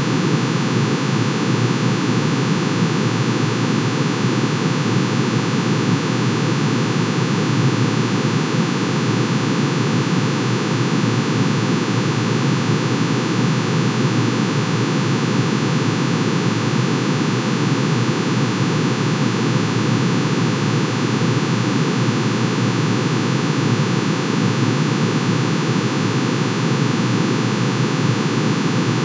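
Manganese's atomic emission spectrum turned into sound: a dense sum of many sine tones, one for each spectral line, pitch-shifted into hearing range. It gives a steady, unchanging noisy hiss with fixed high tones running through it.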